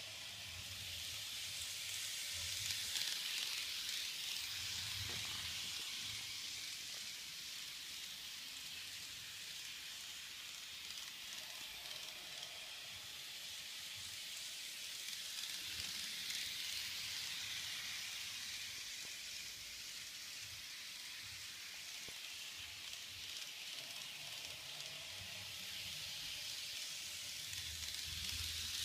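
KATO N-scale model train running on a Unitrack oval: a steady rolling hiss of small wheels on track that swells and fades about every thirteen seconds as the train laps nearer and farther away, with a low motor hum when it is closest.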